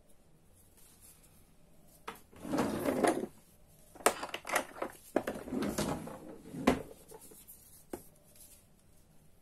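Handling noise from gloved hands turning a Daiwa Seiko Coronet 5 reel's side plate: two stretches of rustling about two and five seconds in, with sharp clicks and taps from the plate and parts, and a single tick near the end.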